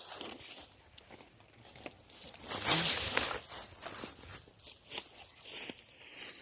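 Irregular rustling and crunching, loudest about halfway through.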